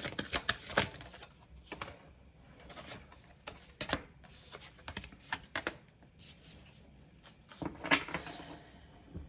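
Tarot cards being shuffled by hand. A quick run of card flicks and clicks comes in the first second, then scattered snaps, and a short sliding rub about eight seconds in.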